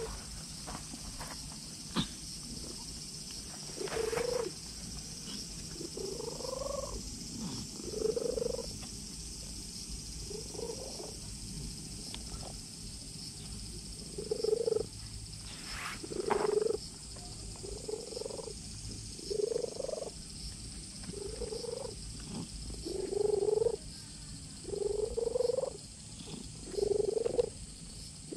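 A cat purring while being stroked, with a short low voiced murmur on many of its breaths, about every one and a half to two seconds, growing louder toward the end: a contented cat.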